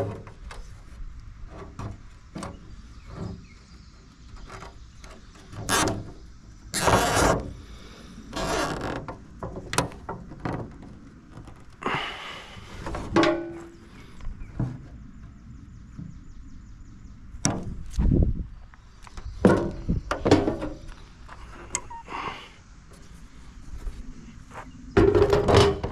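Hand work with zip ties: irregular knocks, thunks and rustling, with a short fast ratcheting about halfway through as a zip tie is pulled tight.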